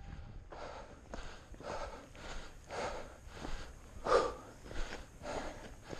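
A runner's heavy, rhythmic breathing close to the microphone, about two breaths a second, with one louder breath about four seconds in.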